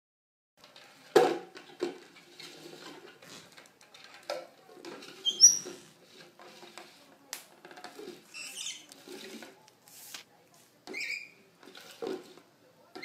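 A lutino rosy-faced lovebird moves about under an upturned clear plastic bowl, knocking and scraping the bowl on a wooden floor. Several short, high chirps from the bird come from about five seconds in.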